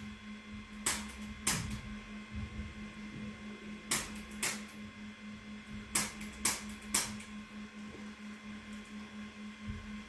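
Seven sharp clicks in three groups, two, two and three, about half a second apart within each group, over a steady low electrical hum.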